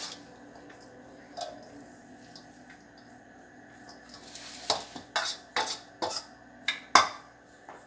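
Metal utensil stirring and scraping in a stainless steel bowl of grated vegetables, faint at first, then a run of about six sharp clinks and knocks of metal on the bowl in the last few seconds, the last one the loudest.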